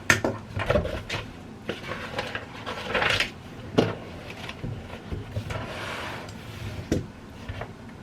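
Desk handling noises: several sharp knocks of objects being set down on a wooden surface, about one near the start, one just before four seconds in and one near seven seconds, with rustling and sliding swishes in between.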